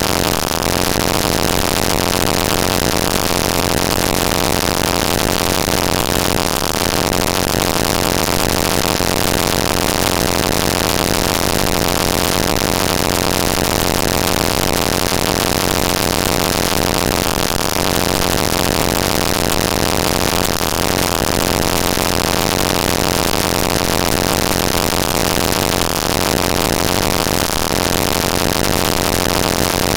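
Network packet-capture text from tshark played back as raw audio samples read as big-endian floats: a loud, unbroken engine-like drone of buzz and hiss with many steady held tones, barely changing.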